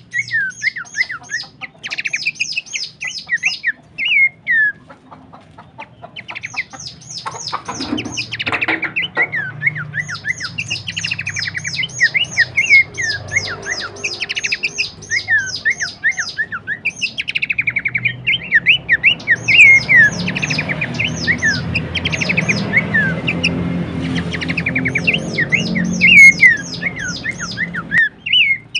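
Pelanduk semak babbler calling: fast runs of high chirping notes mixed with quick down-slurred whistles, coming in bursts with short pauses, over a low steady hum. This is the species' characteristic call, as used for training and luring birds.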